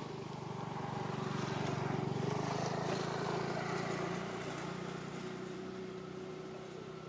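A motor vehicle's engine passing by: a low, steady hum that grows louder to its peak about two seconds in, then slowly fades away.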